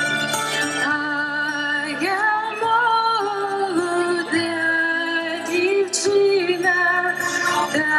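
A woman's solo voice singing a Ukrainian folk song over instrumental accompaniment, holding long notes and sliding between pitches.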